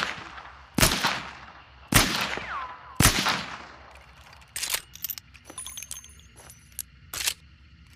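Sharps Model 1 four-barrel derringer firing three shots about a second apart, each with a ringing decay, followed by several lighter metallic clicks and clinks.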